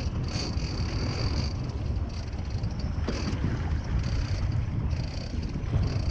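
Fishing boat's engine running under wind buffeting the microphone, with a thin high whine that comes and goes in short spells.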